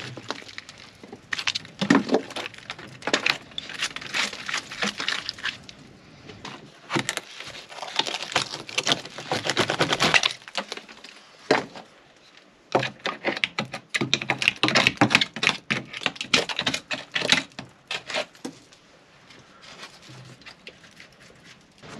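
Hand chisel levering and scraping out a rotten wooden hull frame, the decayed wood cracking and splintering in irregular bursts of sharp clicks and crackles, thinning out over the last few seconds.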